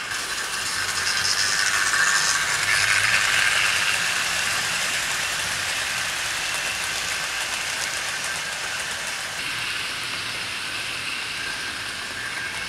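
00 gauge model trains running on the track: a steady rattle of wheels and motors that swells about two to four seconds in, then slowly eases.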